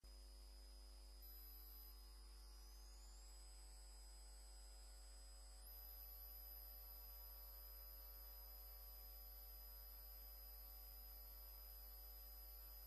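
Near silence: a steady electrical hum with faint, steady high-pitched whine tones; one whine glides upward about two seconds in.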